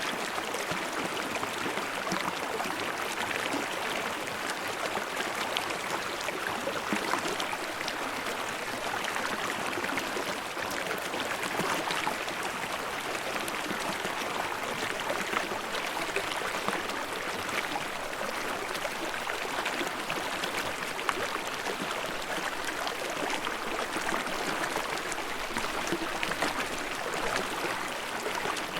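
Forest stream running steadily over rocks, a continuous babbling rush of water.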